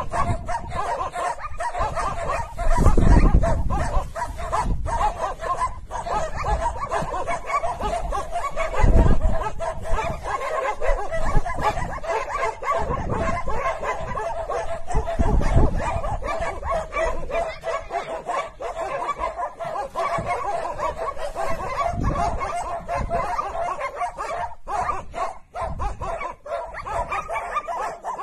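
Several dogs barking over one another without a pause, holding a wild cat at bay. A few louder low thumps come through, about three, nine and fifteen seconds in.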